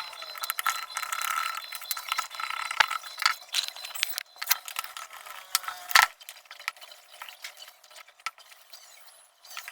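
Small hard pieces, likely metal parts or tools, clinking and clicking irregularly as they are handled, with one louder knock about six seconds in; the clicks thin out after that.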